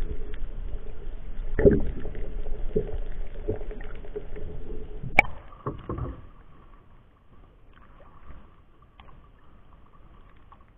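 Muffled water sloshing and splashing against an action camera in its waterproof housing as it bobs at the sea surface. It is heavy for about the first six seconds, with a sharp knock about five seconds in, then much quieter.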